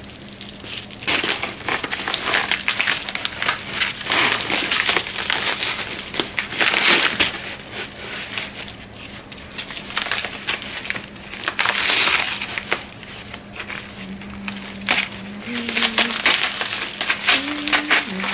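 Plastic packaging crinkling and rustling in repeated irregular bursts as it is handled and opened.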